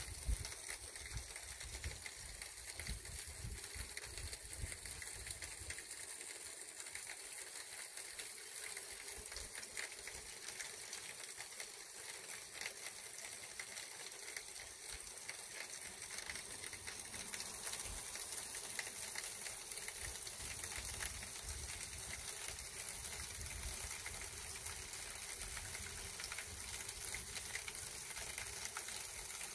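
Stream water rushing steadily, an even hiss without breaks. A low rumble runs under it for the first few seconds, drops away, and comes back after about sixteen seconds.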